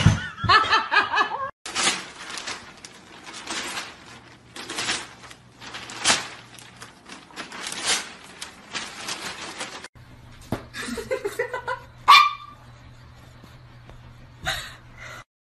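People laughing in short bursts, then a small dog giving a quick run of yaps that ends in one loud bark.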